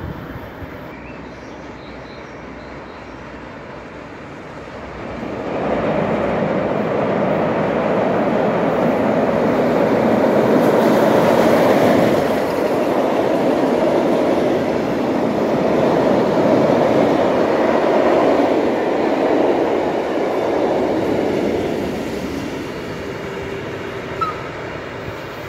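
Passenger train crossing a steel truss bridge: a loud, steady rumble of wheels and coaches on the bridge that builds about five seconds in and fades away after about twenty seconds.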